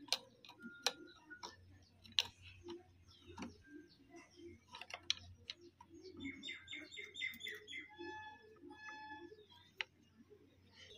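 Light clicks and taps of metal tools on the sewing machine, scattered through, with a bird chirping in the background: a quick run of about six chirps a little past the middle, then a few longer held notes.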